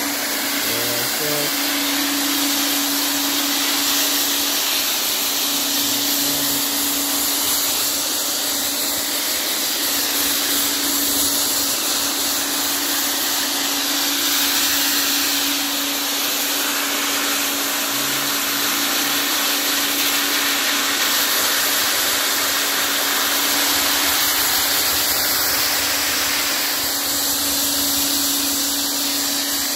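Clarke single-disc rotary floor machine running steadily, sanding a laminate floor: a steady motor hum under a dense hiss from the pad abrading the surface.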